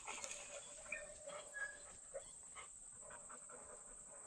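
Faint dog panting, with a steady high drone of insects.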